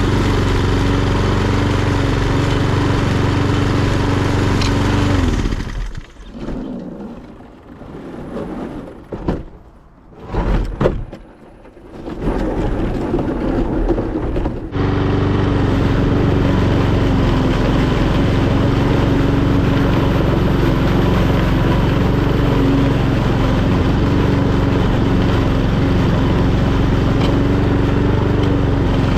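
Etesia Pro46 lawnmower's Honda GCVx170 single-cylinder four-stroke engine running steadily. About five seconds in its pitch sags and it cuts out. For about nine seconds there are only quieter sounds and a few short loud knocks. At about fifteen seconds the engine is suddenly running again at a steady speed.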